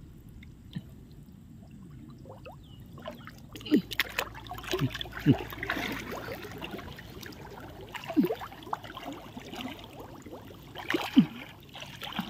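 Water splashing and gurgling in irregular bursts, starting about three and a half seconds in, as a cast net full of fish is drawn in through shallow water.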